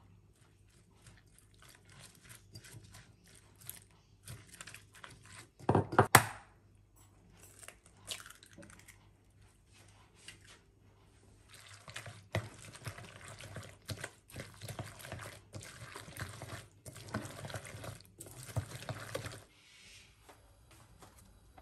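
Wooden chopsticks mixing shredded cabbage, flour and liquid in a glass bowl: light clicks of chopsticks on glass and wet rustling of the cabbage. There is one sharp, loud knock about six seconds in, and steady, busier mixing through most of the second half.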